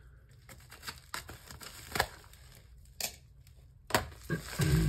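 A box being slit open with a balisong knife and unpacked: a few scattered sharp clicks and scrapes, with louder crinkling and rustling of packaging near the end.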